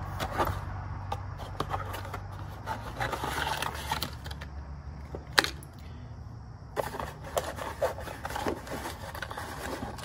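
Cardboard box and paper packaging being handled: irregular rustling, scraping and small taps, with one sharp click about five and a half seconds in, over a steady low hum.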